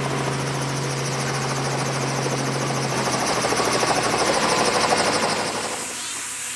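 Helicopter running in flight, a steady mechanical drone with a low hum. It grows louder around the middle, then drops off sharply near the end.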